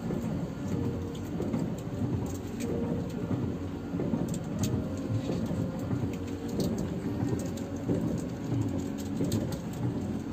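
Rain tapping on the windows and roof of a double-decker bus, heard from inside the cabin as many small drop clicks. Under it is a steady low rumble from the standing bus's running engine.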